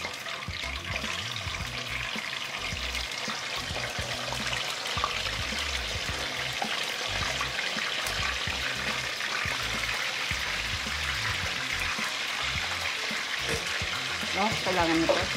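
Marinated chicken pieces deep-frying in a wok of hot oil: a steady sizzle with fine crackles, the wet pieces having just gone into the oil.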